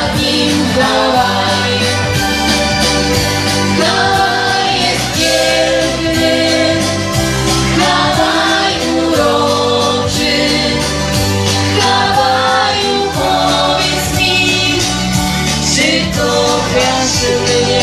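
Women singing into microphones over loud amplified music with a steady, repeating bass line.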